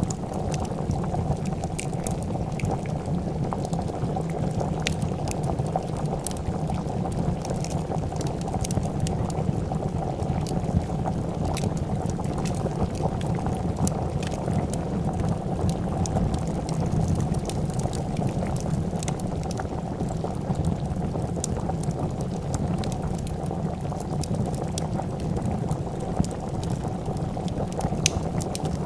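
A pot of soup bubbling at a steady rolling boil, mixed with scattered sharp crackles and pops from a wood fire.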